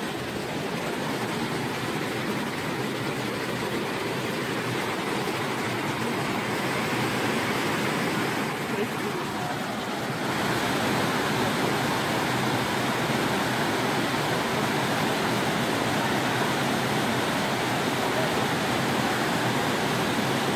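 Waterfall on the Bolshaya Khosta river, a steady rush of falling water that grows louder about halfway through.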